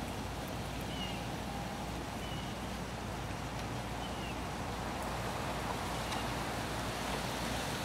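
Steady outdoor background noise with a handful of faint, short, high animal chirps spaced irregularly a second or more apart.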